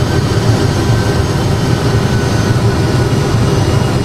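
Steady rumble of engine and airflow noise played by an Airbus A320 full flight simulator's cockpit sound system on final approach, with a few faint, steady high tones above it.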